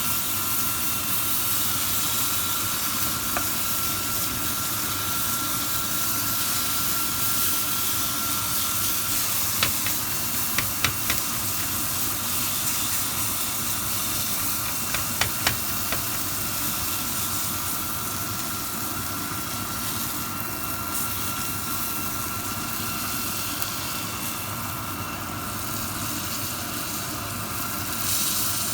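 Chicken steak sizzling in a frying pan: a steady hiss with a faint, steady whine beneath it, and two brief clusters of sharp clicks about ten and fifteen seconds in.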